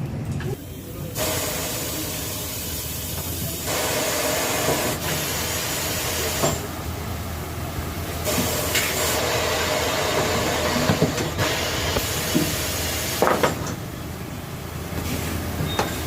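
Air hissing in long spells, with a few sharp metal knocks, during tyre-shop work on a motorcycle wheel.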